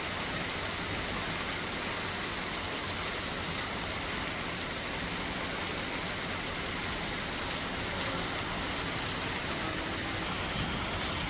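Rain falling steadily, an even hiss without pause.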